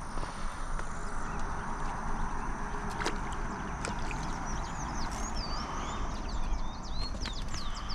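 Birds chirping in many short rising and falling calls, more of them in the second half, over a steady low rumble and hiss of outdoor noise.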